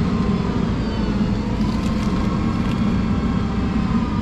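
Tractor diesel engine running steadily, with a slight drift in pitch.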